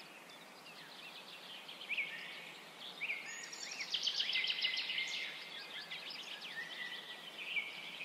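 Birdsong ambience: many small birds chirping and twittering, with short rising and falling whistles and a few longer held whistled notes, over a steady hiss.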